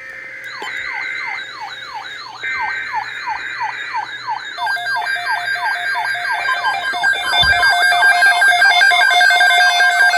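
Several weather alert radios sounding their alarms together: a fast warbling high tone and rapidly repeating falling sweeps, joined about halfway through and again near the end by further beeping alarm tones, the whole din growing louder as each radio goes off.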